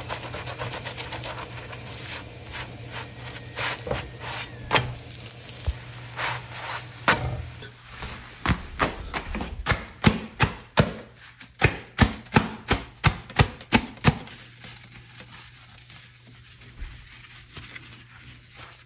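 A hot cooked roti (paratha) being clapped between the palms, a run of sharp slaps about two to three a second, which fluffs it and breaks up its layers. Softer clicks come before the clapping, with a low steady hum underneath.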